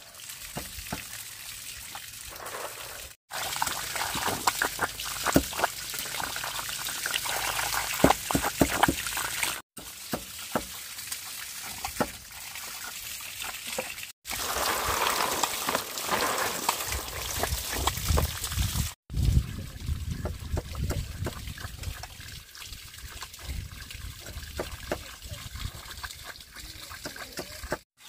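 Water trickling and sloshing, with many scattered clicks and knocks of handling. The sound cuts out abruptly for a moment four times.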